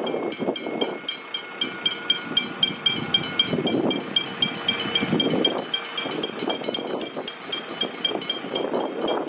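Railway level crossing warning bell ringing in a steady, rapid series of dings while the boom gates are down, with the rumble of a train and road traffic swelling and fading underneath.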